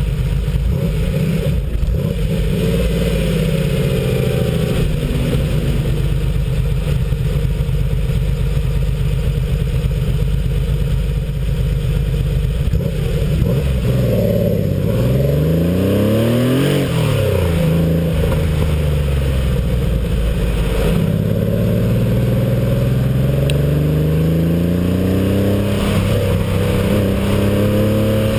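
A 1986 Porsche 911's air-cooled flat-six engine pulling hard on an autocross run, its pitch rising and falling as the driver accelerates, brakes and shifts. About halfway through the revs drop sharply and climb straight back up, and near the end they rise steadily under acceleration.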